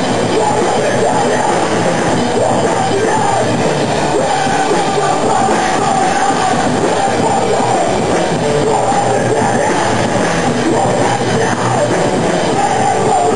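Rock band playing live and loud: electric guitar over a drum kit, at a steady full level with no breaks.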